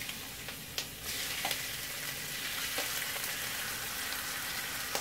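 Peeled raw shrimp sizzling as they go into hot oil with onion and garlic in a skillet; the sizzle grows louder about a second in and holds steady. A few light clicks as the shrimp drop into the pan.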